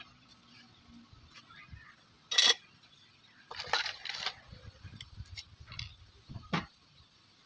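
Small clicks, clinks and rustles of parts and tools being handled on a circuit board, with one short, louder scraping burst about two and a half seconds in and a flurry of clicks a second later.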